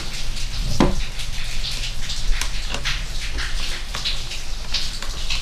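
Scattered light clicks and knocks of the air rifle's metal action and a screwdriver against the wooden stock and table, as the front stock screws are being fitted. Under them runs a steady hiss with a low hum.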